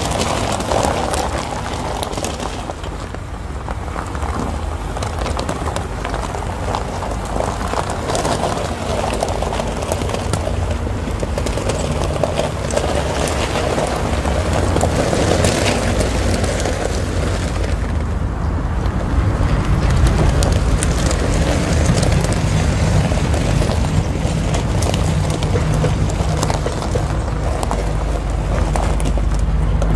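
Background music with heavy bass and a steady beat.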